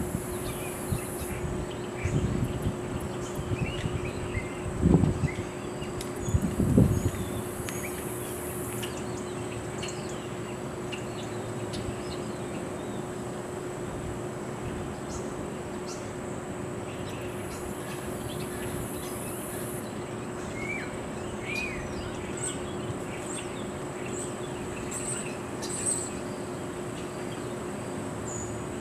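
Outdoor ambience: scattered bird chirps and insect buzzing that comes and goes in spells of a few seconds, over a steady low hum. A few low rumbles sound in the first seven seconds.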